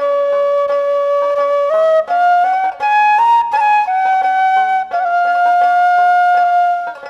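Background music: a flute plays a slow melody of long held notes, stepping up in pitch and back down, over a steady low drone.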